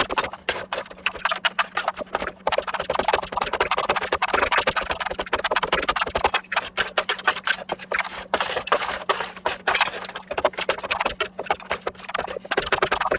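Metal spatulas scraping and clicking rapidly against a stainless steel pan as ice cream base freezing onto the cold pan is spread and worked, in quick irregular strokes.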